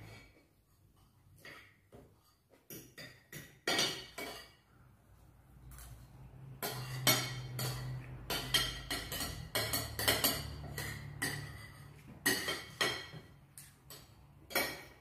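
Metal forks and spoons clinking and scraping on ceramic plates as people eat. The clicks come singly and sparsely at first, then grow busier about six seconds in.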